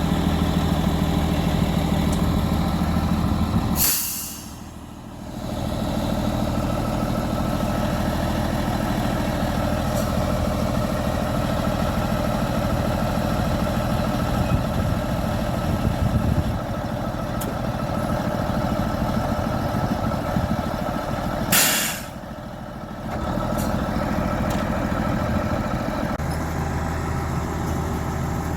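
A vehicle engine running steadily, broken twice by a short, sharp hiss, the first about four seconds in and the second past the two-thirds mark. Each hiss is followed by a brief dip in the engine sound.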